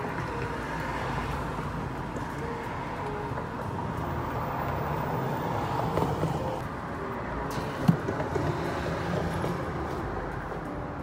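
Steady traffic noise from a road, with paperback books being slid and handled on the wooden shelf of a little book box, and a sharp knock about eight seconds in.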